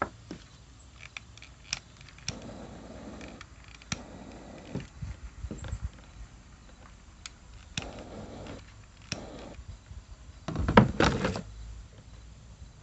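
Handling noises from working with small parts and wires: scattered clicks and short stretches of rustling, with a loud burst of knocking and rattling about eleven seconds in.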